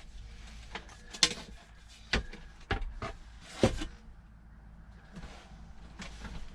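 Several sharp knocks and clicks, four of them stand out, from tools and parts being handled during a truck gear-shifter install.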